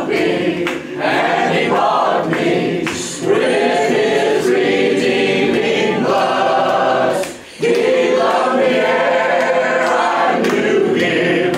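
A congregation singing a hymn together, led by a man singing into the pulpit microphone. Long held notes are broken by a short pause for breath about seven and a half seconds in.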